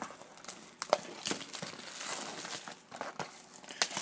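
Plastic shrink-wrap crinkling and cardboard being handled as a sealed trading-card box is opened, with a few sharp clicks.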